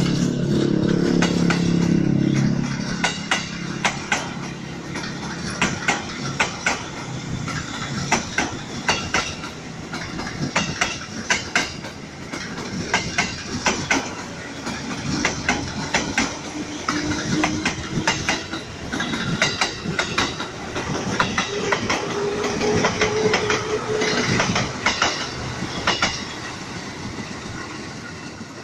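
Ex-JR 205 series electric commuter train passing close by, its wheels clacking over the rail joints in a long run of sharp clicks. A loud low hum in the first few seconds, and a rising whine later on.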